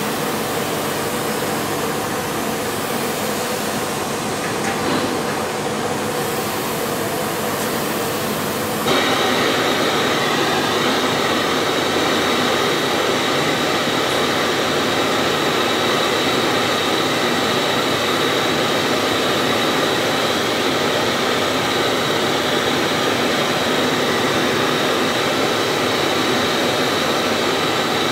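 Gas blowtorch flame burning steadily, heating a fluxed brass end fitting on a gas-tank tube for silver soldering. It comes in sharply louder about nine seconds in, over a steady hiss before that.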